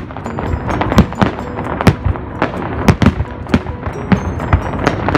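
Fireworks going off in quick succession: sharp bangs come irregularly, roughly two a second, over a continuous rumble and crackle of further bursts.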